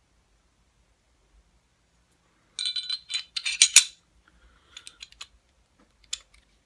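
Metal pistol parts of a field-stripped Glock 19 (slide, barrel and recoil spring) clinking and clicking as they are handled and fitted back together. A burst of sharp clinks with a brief metallic ring comes a little over two seconds in, followed by a few lighter clicks.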